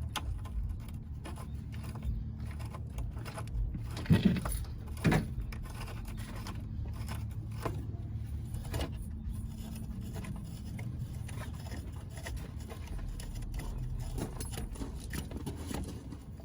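Metal ATF cooler line and its fitting being handled and set into place on a car radiator: scattered small clicks and scrapes over a steady low hum, with two louder sounds about four and five seconds in.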